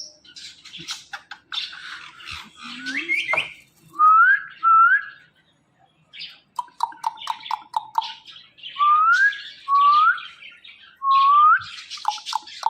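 Ringneck parakeet whistling and chattering: several short rising whistled notes, a quick run of clipped chirps about halfway through, and soft clicks and chatter between them.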